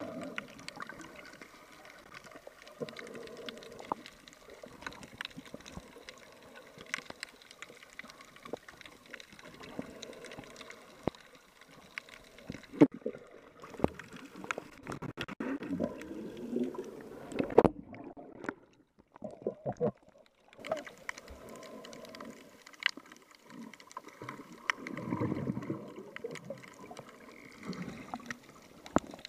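Water and bubbles heard underwater while swimming: gurgling and rushing water, with many sharp clicks and a few low wavering sounds. The high end drops out briefly about two-thirds of the way through.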